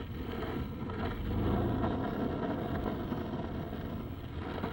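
Steady low rumble of outdoor street ambience: distant traffic and wind on the camera microphone.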